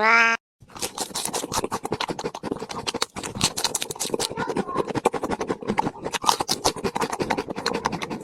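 Rapid, irregular scratching and clicking: many small sharp strokes in quick succession, starting about half a second in and continuing without pause.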